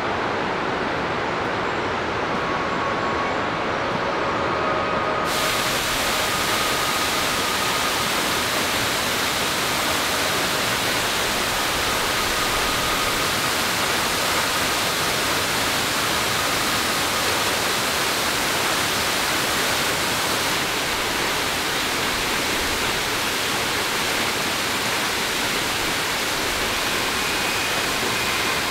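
Waterfall and mountain stream rushing steadily. About five seconds in the rush abruptly turns brighter and fuller.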